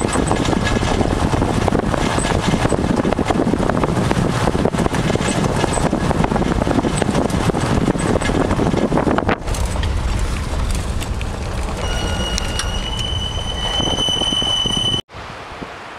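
A vehicle on the move, with loud, steady road and wind noise. About nine seconds in it changes to a lower rumble, and for the last few seconds a steady high whine sounds over it before it cuts off abruptly.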